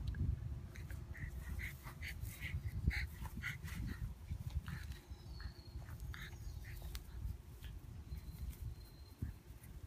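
English Bulldog puppies giving a run of short, high yips and squeaks as they play, several a second during the first few seconds and sparser after, over a steady low rumble.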